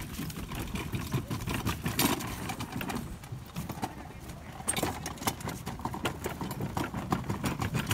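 Irregular clattering knocks of footsteps and a wagon's wheels on the planks of a wooden boardwalk.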